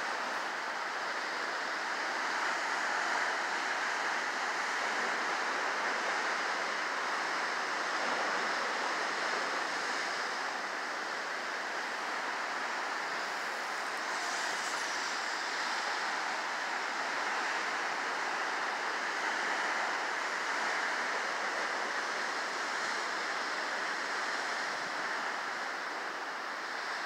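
Ocean surf breaking over a rocky shoreline: a steady rush and wash of water with slow, gentle swells in loudness.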